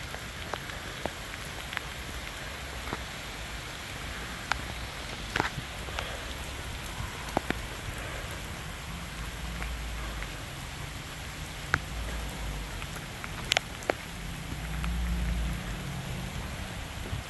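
Heavy rain falling, with many scattered sharp drip ticks and a few louder splats, and a low rumble now and then.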